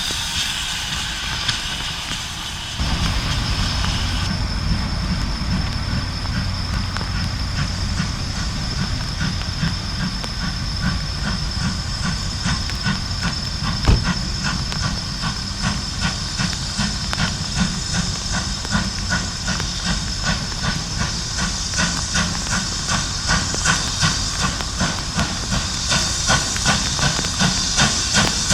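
Steam locomotive running, with a steady steam hiss over a regular beat that grows louder near the end. A single sharp knock comes about halfway through.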